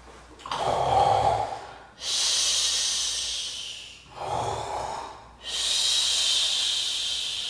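A woman acting out a sleeping cat with loud, exaggerated breathing: two slow breaths, each a short in-breath followed by a long hissing out-breath of about two seconds.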